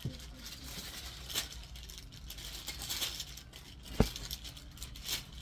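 Garments being handled: rustling and crinkling with scattered light clicks, one sharper click about four seconds in.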